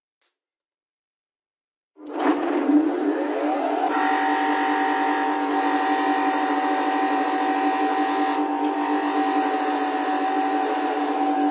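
A homemade grinder's electric motor with MDF wheels is switched on about two seconds in. Its whine rises as it spins up, then it runs at speed with a steady hum and whine.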